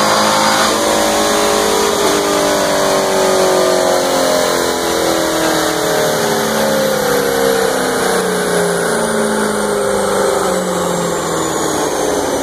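Chevrolet Corvette Grand Sport's V8 on a chassis dyno, winding down after a pull: the loud engine note falls steadily in pitch over about ten seconds as the engine and rollers slow. A thin high whine falls alongside it.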